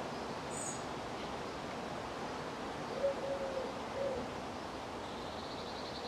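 Garden ambience with a steady outdoor hiss and a dove cooing once, about three seconds in: a three-note phrase, short, long, short. A brief high bird chirp comes just after the start, and a faint high twitter near the end.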